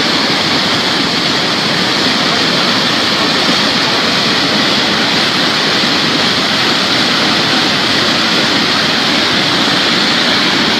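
Floodwater rushing through a street like a river, a loud, steady, unbroken rush of water.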